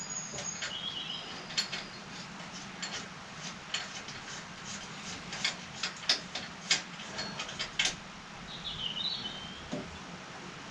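Scattered light clicks and knocks of a pillar drill's V-belt and pulleys being handled, over a faint steady low hum, with two brief high squeaks.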